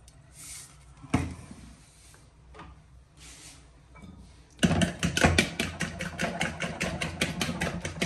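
Eggs being beaten with a fork in a bowl: rapid, even clicking of the fork against the bowl, about eight strokes a second, starting a little past halfway. A single sharp knock about a second in.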